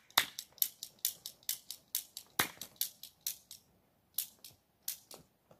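Dollar-store toy cap gun's trigger clicked over and over without caps firing, about four to five sharp clicks a second with a short pause a little past the middle.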